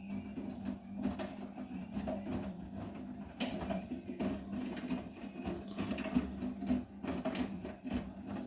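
Vestel CMI 97302 front-loading washing machine turning its drum in a 70 °C cotton wash: a steady motor hum with the clatter of wet laundry and water tumbling, cutting off near the end as the drum stops.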